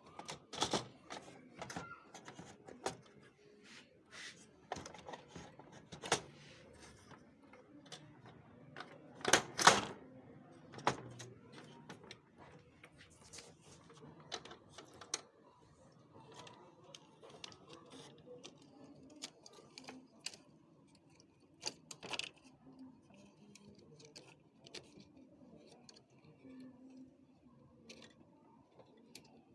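Irregular clicks, taps and knocks of plastic and metal printer parts being handled and snapped into place while a Xerox WorkCentre 5855's document feeder is reassembled, with a louder cluster of knocks about nine to ten seconds in.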